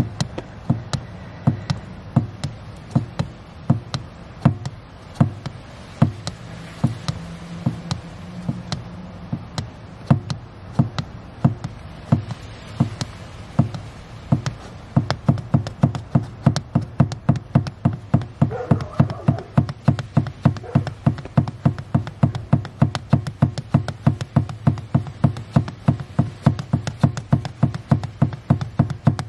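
Rhythmic knocking taps from an accelerator pedal pumped by a slippered foot, about two a second and quickening to about four a second from about halfway through, over a steady low hum.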